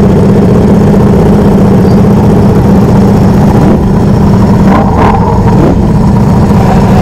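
Ducati V4 motorcycle engines idling in a steady, loud low note, the rider's own Streetfighter V4 SP closest to the microphone with the group's other Ducatis running alongside.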